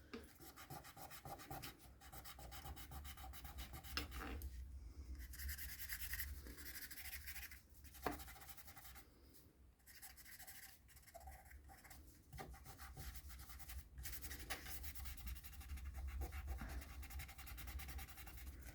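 Green pastel pencil scratching and rubbing on stamped card as a scene is shaded in, in runs of short back-and-forth strokes with brief pauses.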